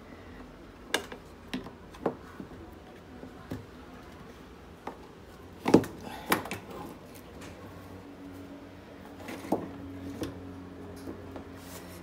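Scattered knocks and clicks of a washing machine's metal suspension rod and plastic tub housing being handled, the loudest knock a bit under six seconds in. A faint steady hum comes in during the second half.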